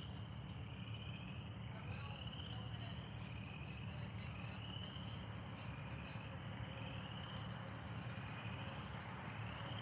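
Night-time insect chorus: a steady dense trill of crickets, with a short rising chirp repeating every two seconds or so.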